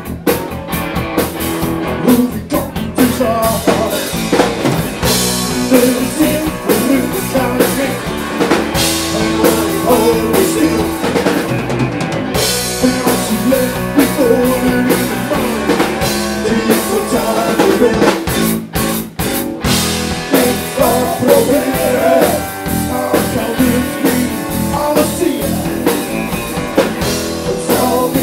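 Live rock band playing loudly: electric guitars and a drum kit driving a steady beat, with a male lead singer's voice over them.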